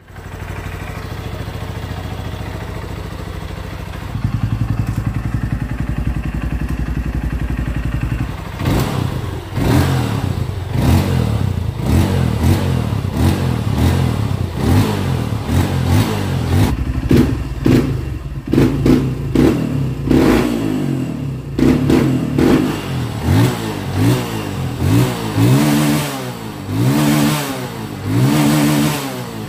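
Honda CRF150L single-cylinder four-stroke motorcycle engine running through its exhaust: a steady idle that steps up to a faster idle about four seconds in. From about eight seconds on it is blipped over and over in short revs, the pitch rising and falling each time, with sharp crackles in between.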